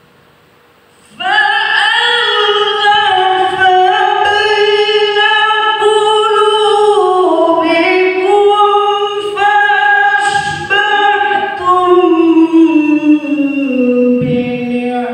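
A man's high, melodious voice in Qur'an recitation (tilawah) into a microphone: about a second in it enters and holds one long ornamented phrase that slides slowly downward in pitch, breaking off for a breath near the end.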